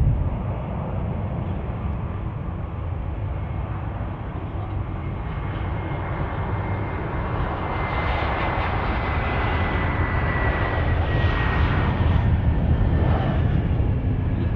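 Airbus A321 jet engines on a landing approach, a steady jet noise growing louder in the second half. A high fan whine slowly falls in pitch as the airliner passes over the runway.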